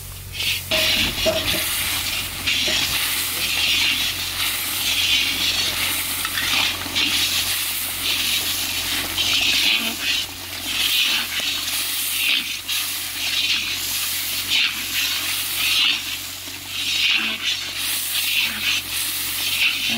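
Onion and spice masala sizzling in hot oil in a large karahi over a wood fire, stirred with a slotted metal ladle. The sizzle swells and eases every second or two with the stirring strokes.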